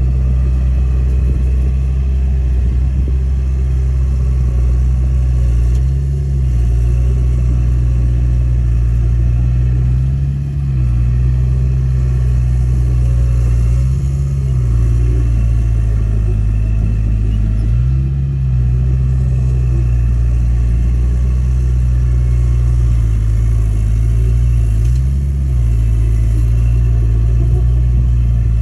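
Komatsu D31A bulldozer's diesel engine running steadily and loudly under load. The engine speed picks up briefly every few seconds as the machine works.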